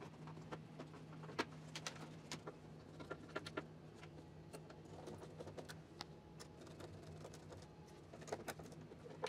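Faint, irregular light clicks and taps of wires and terminals being handled inside an inverter's wiring compartment, over a low steady hum.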